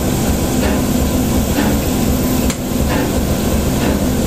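Steam train running, with a regular beat over a loud steady rumble.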